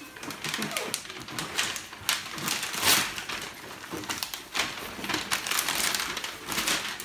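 Gift wrapping paper and tissue paper rustling and crinkling in quick, irregular bursts as a present is unwrapped, loudest about three seconds in.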